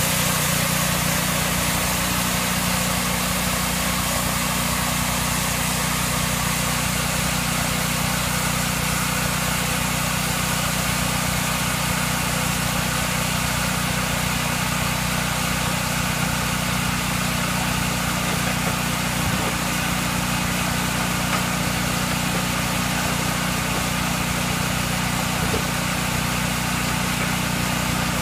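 Engine-driven band sawmill running, a steady drone that holds at one level.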